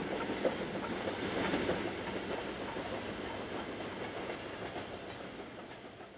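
Wagons of a steam-hauled goods train rolling past, their wheels clicking over the rail joints. The sound fades steadily away as the last wagons pass.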